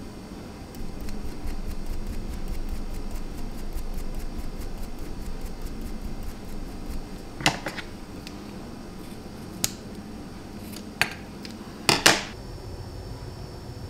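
A small comb raking through a tuft of yarn in light, quick strokes, about four a second. In the second half come a few separate sharp clicks and taps from handling the comb and yarn, the loudest a double click near the end.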